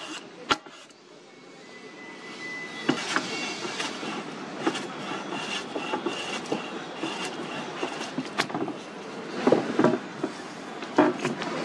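Metal hand plane shaving a wooden plank: repeated rasping strokes with several sharp clicks, louder near the end. A faint high whine comes and goes in the background.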